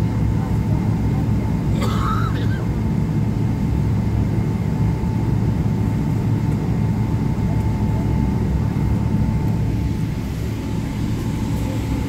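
Airliner cabin noise with the engines running on the ground: a steady low rumble and a faint steady whine.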